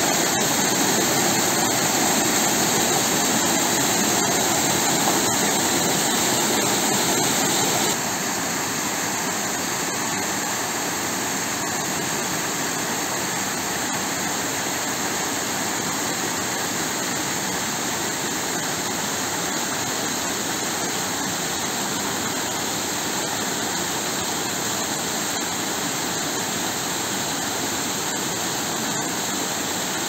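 Small mountain waterfall cascading over rocks: a steady rush of water. About eight seconds in it drops to a quieter, more distant rush.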